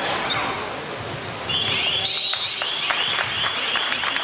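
Referee's whistle blown in one long warbling blast, starting about a second and a half in. Sharp knocks of a basketball bouncing repeat over the echoing noise of the sports hall.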